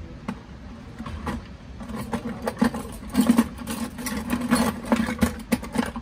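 Plastic clicking and rubbing from fingers working an IP camera cable's RJ-45 connector and its plastic waterproof housing. A few scattered clicks come first, then a dense run of quick clicks and scrapes from about two seconds in.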